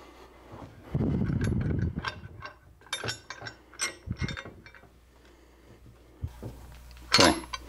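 A metal lathe tool-rest banjo is slid and handled on the lathe bed ways. There is a scraping slide of about a second, then a run of sharp metallic clicks and knocks, and a louder clank near the end.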